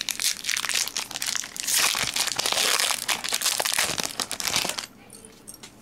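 Foil Pokémon TCG booster pack wrapper crinkling and crackling as it is torn open by hand, stopping about a second before the end.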